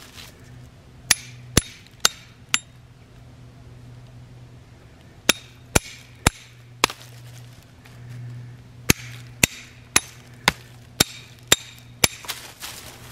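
Hatchet used as a hammer, knocking a wooden stake into the ground: sharp knocks with a slight ring, about two a second, in three runs of four, four and then seven strikes.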